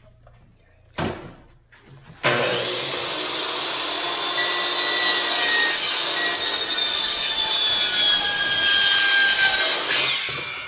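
A DeWalt miter saw cutting a tongue-and-groove ceiling board: a single knock about a second in, then the saw starts suddenly and runs loud and steady through the cut for about eight seconds, with a whine over the noise. Near the end it is released and winds down, its pitch falling.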